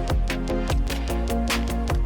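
Electronic background music with a steady, fast drum beat and sustained synth notes.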